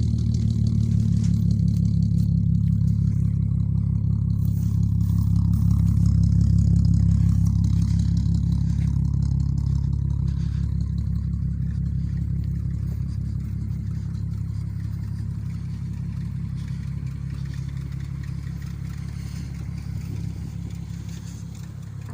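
Volkswagen VR6 engine with a 3-inch straight-pipe exhaust and Magnaflow resonator, idling steadily with a deep exhaust note that slowly gets quieter in the second half.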